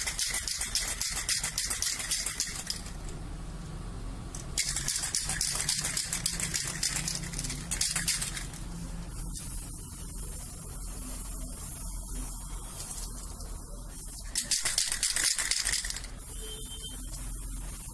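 Aerosol spray-paint can hissing in three bursts while paint is sprayed onto a car grille, one of about three seconds at the start, a longer one from about five to eight seconds in, and a short one near the end. Between the bursts the can's mixing ball rattles and clicks as it is shaken.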